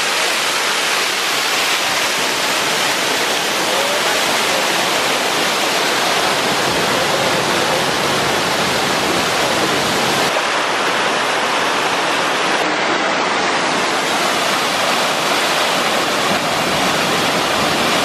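Waterfall pouring into a rocky pool: a steady, loud rush of falling water.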